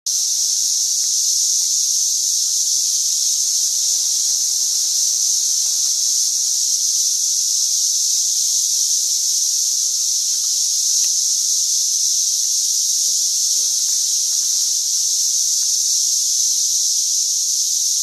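Chorus of 13-year periodical cicadas (Brood XIX) massed in the trees: a loud, steady, high-pitched drone that holds without a break.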